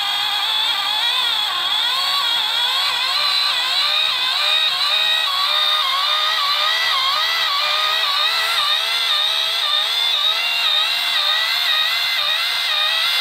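Vintage battery-operated Mego Space Tract toy running its jet-sound effect: a loud, steady electro-mechanical whine that warbles up and down in pitch over and over, like a strangled chinchilla.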